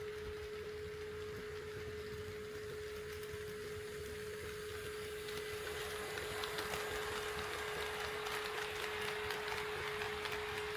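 HO-scale model train running on the layout track: a light rush of wheel and motor noise with fine clicks that grows louder about halfway through, over a steady high-pitched tone.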